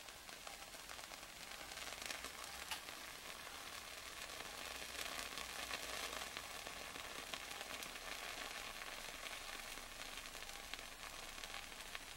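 Small pile of pine-resin tinder dust burning with a faint, steady hiss and a few light crackles; the hiss swells a little in the middle.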